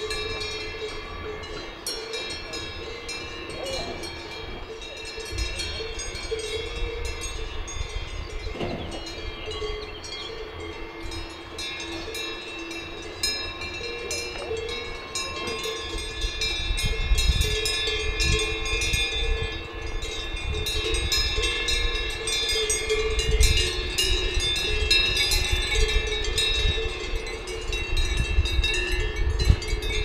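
Cowbells on grazing cattle clanking and ringing together in a steady jangle. A low rumble comes in about halfway through.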